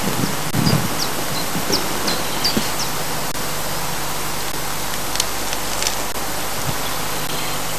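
Steady hiss with a faint low hum from an old camcorder's microphone, with a few low bumps near the start and several short high chirps in the first few seconds.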